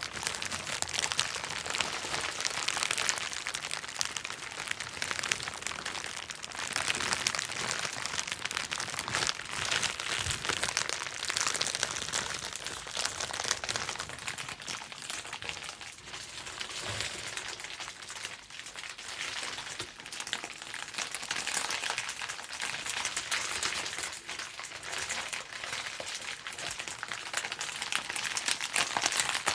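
Bubble wrap being popped and crinkled: a dense, continuous run of small sharp pops over a steady crackle, easing a little around the middle.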